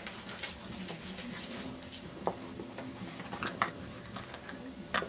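Five-and-a-half-week-old Labrador puppy chewing and mouthing a knotted rope toy: quiet rustling with a few small clicks.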